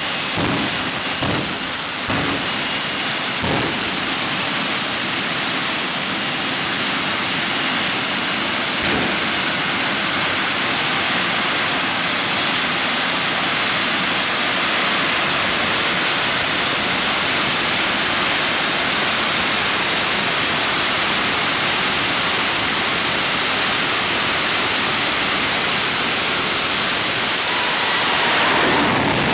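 Two jet dragsters' turbine engines running on the starting line: a loud, steady jet roar with a high turbine whine that fades within the first ten seconds. In the last second or two it swells louder as the afterburners light.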